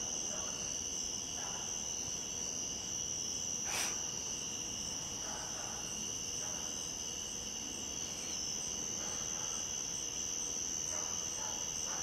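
Steady high-pitched chorus of crickets and other night insects, holding two pitches without a break, with one brief click about four seconds in.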